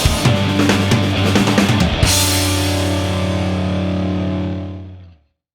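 Rock soundtrack music with drums and guitar that ends on a held final chord about two seconds in, which fades away and cuts to silence shortly before the end.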